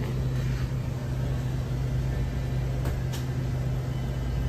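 Steady low hum of store machinery, with two faint short clicks about three seconds in.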